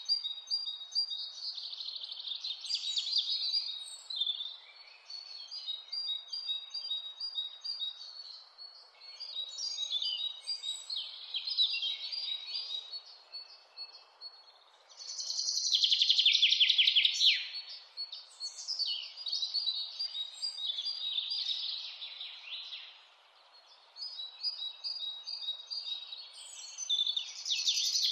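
Wild birds singing: a string of high trilled and chirping phrases separated by short pauses, the loudest a long trill about halfway through, over a soft steady background hiss.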